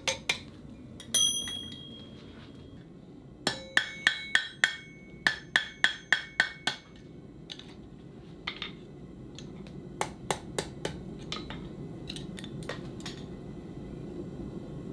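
Blacksmith's hammer striking steel on an anvil: a single blow with a long clear ring about a second in, then a run of quick ringing blows, about three a second, for some three seconds, and after that scattered lighter taps.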